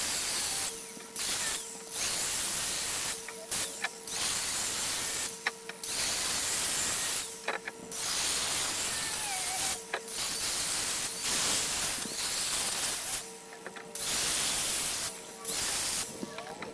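Air-over-hydraulic press pump running on shop air with a loud, steady hiss. It stops and starts again about a dozen times, each break brief and sudden.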